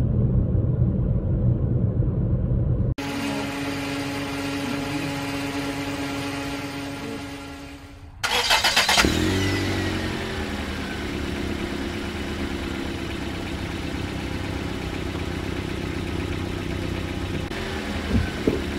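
Low road rumble of a car cruising on a motorway, cut off abruptly about three seconds in; after a few seconds of a steady hum that fades away, a car engine is started with a short crank and a brief rev, then settles into a steady idle.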